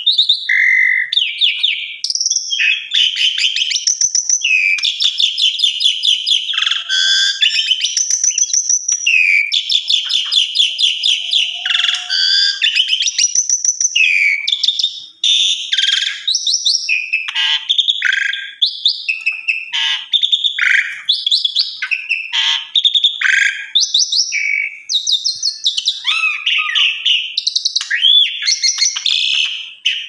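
An Asian pied starling in full song: a fast, nearly unbroken stream of chattering rattles and sliding whistles, with a brief pause about halfway through. This is the bird showing off its repertoire of learned phrases ('bongkar isian').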